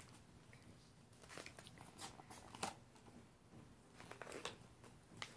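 Faint rustling of a hardcover picture book's paper pages being turned and handled, heard as several brief soft scrapes.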